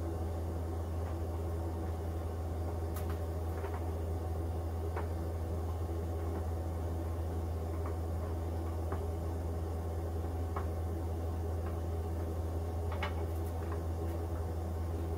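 Steady low hum, with a few faint clicks and taps now and then as carrot sticks are laid into a stainless steel tray.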